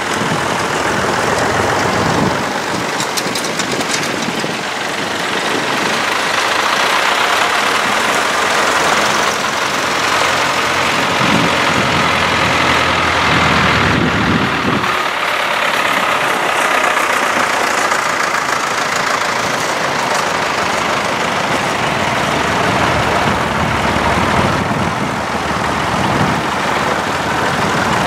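A procession of vintage tractors driving past one after another, their engines running steadily. A large tractor passes close about halfway through, its engine swelling and then dropping away.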